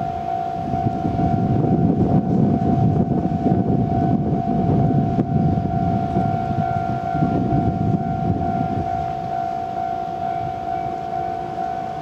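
Japanese railway level-crossing warning bell sounding a steady high tone while a freight train runs through the crossing. The train noise eases somewhat after about nine seconds.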